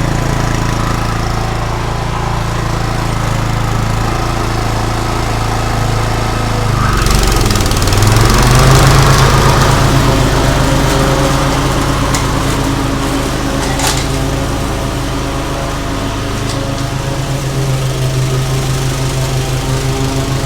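Toro TimeMaster walk-behind mower's engine running steadily while mowing. About seven seconds in it gets louder and its tone shifts for a few seconds before settling back, with a few sharp clicks a little later.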